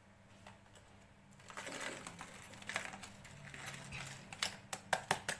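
Shaved palm sugar being tipped by hand from a small plastic container into a saucepan: a rustle of handling from about a second and a half in, then a quick run of light clicks and taps near the end.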